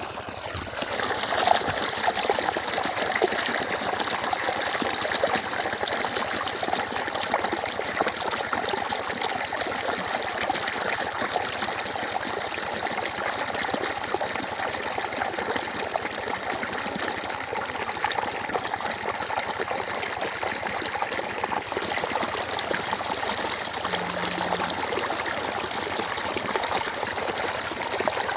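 Water flowing steadily and continuously, an even trickling rush.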